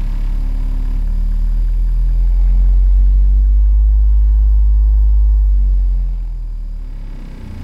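Car audio subwoofers playing bass-heavy music loud, with deep held bass notes that change pitch; the level drops about six seconds in.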